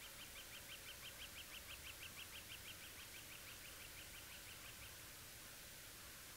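A faint bird trill: a long, even series of short high notes, about six a second, that stops about five seconds in.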